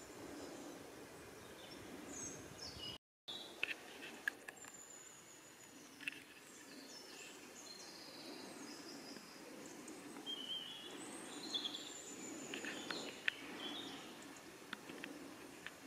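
Faint woodland ambience: scattered songbird chirps and short trills over a low steady outdoor hum, with a few light clicks. The sound drops out completely for a moment about three seconds in.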